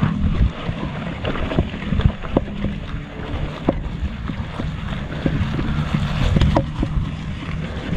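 Mountain bike ridden up a rough grassy dirt slope: tyres rumbling over the ground, with frequent sharp knocks and rattles from the bike and wind buffeting the camera microphone.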